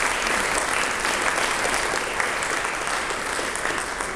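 An audience applauding steadily in a hall, a dense patter of many hands clapping that begins to thin out near the end.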